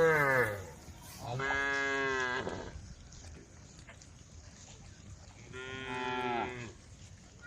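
Cows mooing: three long moos with quiet gaps between them. The first ends with a falling pitch about half a second in, the second follows about a second later, and the third, fainter one comes near the end.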